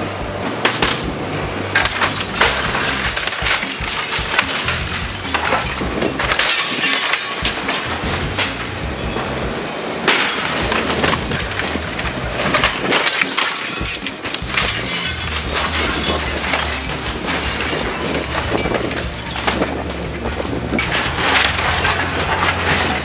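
An excavator tearing into a house: repeated cracking and crashing of breaking debris with glass shattering, and a low engine hum coming in past the midpoint. Background music plays underneath.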